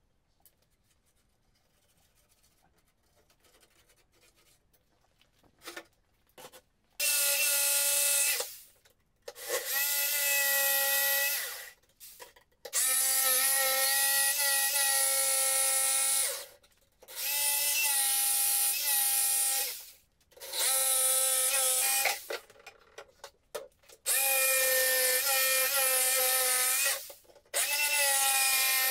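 Electric drill running in about seven separate runs of one to four seconds each, starting about seven seconds in: a steady motor whine that sags a little in pitch as each run starts and stops.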